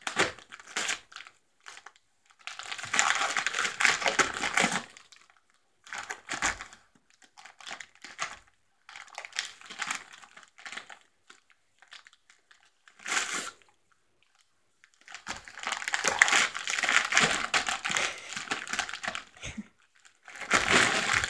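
A pit bull tearing and crinkling gift wrapping paper with its teeth and paws. The sound comes in bursts, some brief and two lasting several seconds, with quiet pauses between.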